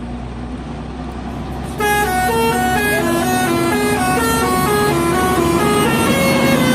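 Bus engine running, then about two seconds in a telolet horn (a multi-tone musical air horn on an Indonesian bus) starts playing a fast melody of stepping notes, up and down, and keeps playing.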